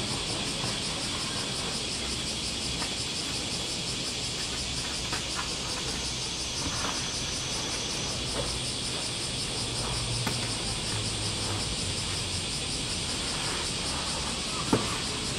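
Steady chorus of insects buzzing, with one sharp knock near the end.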